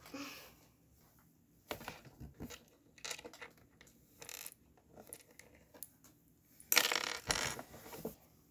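Small plastic Lego pieces clicking and clinking against each other as they are handled, with a louder clatter of pieces about seven seconds in.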